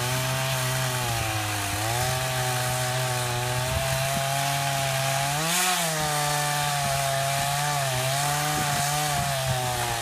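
Two-stroke chainsaw running under load as it cuts into a tree trunk. Its engine note sags and picks up again as the bar bites, with a brief rise in pitch about five and a half seconds in.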